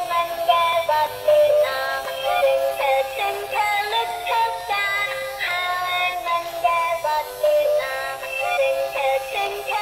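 Crawling-and-singing baby doll toy playing a synthesized sung nursery-rhyme tune through its small speaker: a high, thin electronic voice stepping from note to note without pause.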